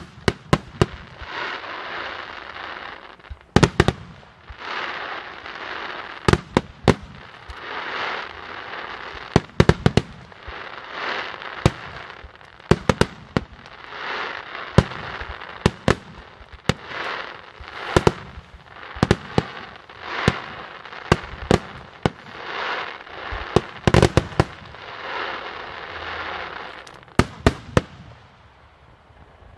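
Aerial fireworks display: sharp bangs of bursting shells, often several in quick succession, over a rushing, crackling noise that swells and fades about every second and a half. It stops about a second before the end.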